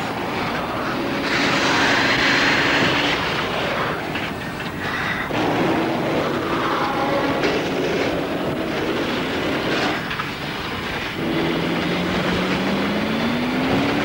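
Speedboat running flat out at high speed: a steady engine drone under rushing water and spray, broken by a few sharp cracks. Over the last few seconds the engine pitch rises.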